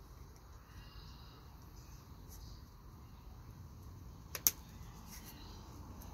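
Faint rustle of grafting tape being pulled off the roll and stretched around a bark graft, over a low steady rumble, with a sharp double click a little over four seconds in.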